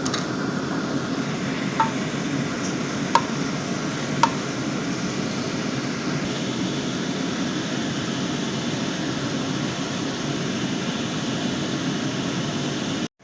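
Steady whirring of a kitchen fan, with three short metallic clinks of a utensil against a cooking pot in the first few seconds.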